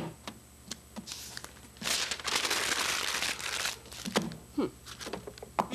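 Paper crinkling and rustling for about two seconds mid-way, with scattered light clicks and taps of handling before and after.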